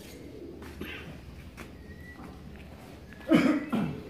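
Racing pigeons cooing in their loft: a low murmur of coos, then two louder, falling coos close together a little past three seconds in.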